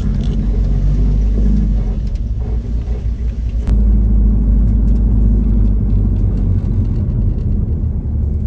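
Steady low rumble of a vehicle's engine and road noise, heard from inside the moving vehicle. A sharp click comes a little under four seconds in, after which the rumble is louder.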